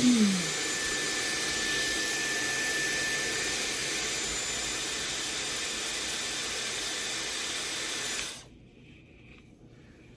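Dyson Airwrap hair styler blowing air through a curling barrel: a steady rushing hiss with a faint high motor whine, switched off about eight seconds in.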